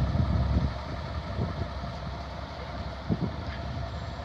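Small diesel shunting locomotive's engine running as it moves off along the track, fading over the first second as it draws away. A couple of short knocks sound about three seconds in.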